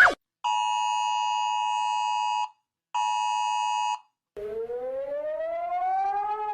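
Emergency alert tones: two long, steady electronic beeps, each a chord of several pitches, the first about two seconds long and the second about one, with short silences between. About four seconds in, a siren begins that rises slowly in pitch.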